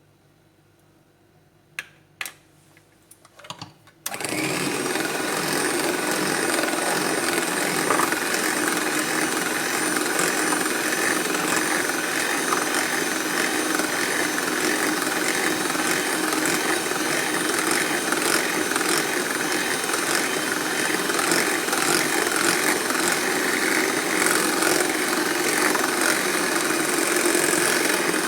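A few light clicks, then about four seconds in an electric mixer switches on and runs steadily at speed, beating the lemon cake batter.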